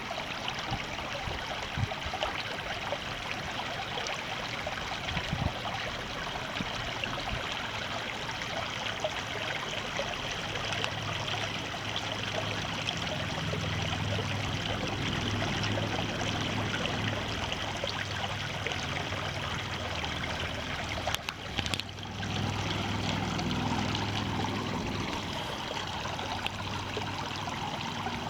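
Running water flowing steadily, an even rushing and trickling, with a low rumble joining in after about ten seconds and a brief dip about two-thirds of the way through.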